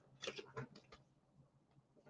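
Near silence: room tone, with two or three faint clicks in the first second.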